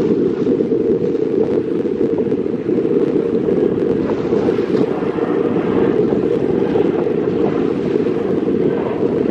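Wind buffeting the microphone: a loud, steady low rumble with no distinct events.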